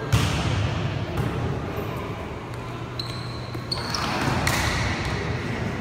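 A volleyball is struck or lands with one sharp smack just after the start, ringing through the gym hall. A few short, high squeaks of shoes on the hardwood court come about three to four seconds in.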